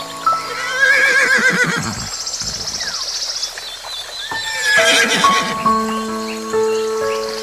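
Horse whinnying twice: a quavering call about a second in and another around the middle, over background music with held notes.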